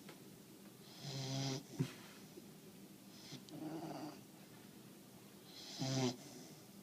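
Slow, regular snoring: three long rasping snores about two and a half seconds apart, with a short sharp snort or click just after the first.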